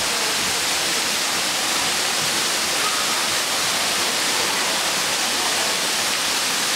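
Water streaming and spraying from water-park fountains and a pipe-and-bucket splash structure, splashing down in a steady hiss.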